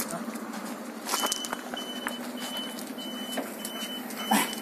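A vehicle's engine idling with a steady low hum. From about a second in, a high electronic beep repeats steadily, a little under twice a second. Two sharp knocks sound, the louder one near the end.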